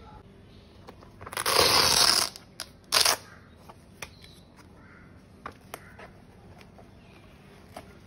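A Victorinox cutlery bag being opened by hand: a loud ripping rasp lasting about a second, then a shorter one at about three seconds, followed by light clicks and rustles of the bag's nylon and straps being handled.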